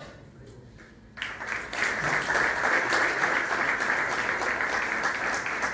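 A roomful of people starts applauding about a second in, after a few scattered claps, then keeps up a dense, loud clapping.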